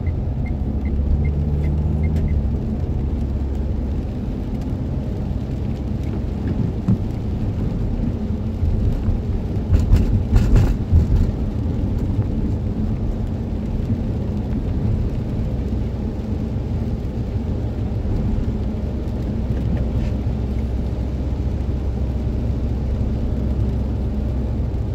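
Low, steady engine and road rumble heard from inside a car driving on a wet highway, with a brief louder clatter about ten seconds in.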